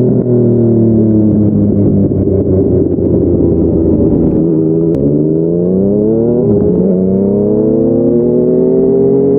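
Yamaha MT-09's three-cylinder engine through a Yoshimura R55 slip-on exhaust. Revs fall for about five seconds as the bike slows on the engine, then jump up suddenly about halfway, as on a downshift. It pulls again with a brief dip in revs near seven seconds, as on an upshift, and the revs then rise steadily.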